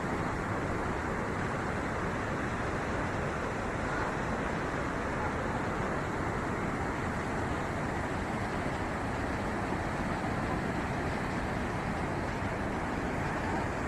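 Floodwater rushing past: a steady, unbroken roar of fast-flowing water.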